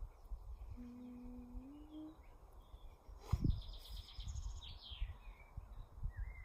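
Birds chirping: a few short high calls and a falling trill about three to four seconds in, another short call near the end. A soft knock comes just before the chirps.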